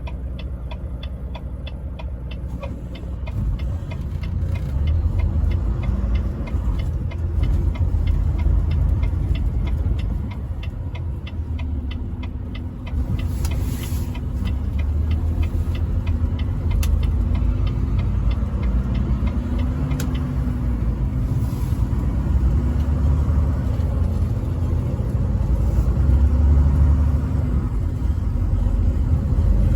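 A truck on the road: deep, steady engine and road rumble, with rapid regular ticking through the first twelve seconds and the engine note wavering up and down in the second half.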